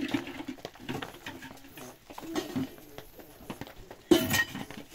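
Toddlers' short babbling sounds in a small room, over rustling and light knocks of things being handled in a bag, with a sudden louder noise about four seconds in.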